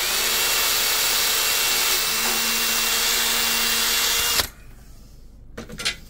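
Small handheld power drill running at speed with a steady whine, working the steering-rod hole in the boat's transom to size, then switching off abruptly about four and a half seconds in.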